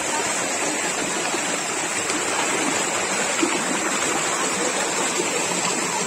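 Shallow stream water rushing steadily over rocks and boulders, heard right at the water's surface.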